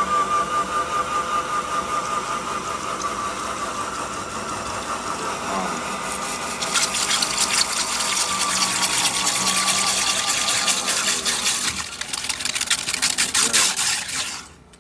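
Wall-mounted electric core drill running, its diamond bit cutting through a concrete grade beam: a steady motor whine with a pulsing beat, joined about halfway by a louder, hissing grind. The drill shuts off just before the end.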